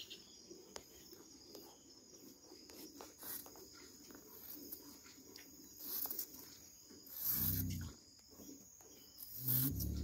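Cattle lowing: a short low moo about seven seconds in, and another starting near the end, over a faint steady insect drone.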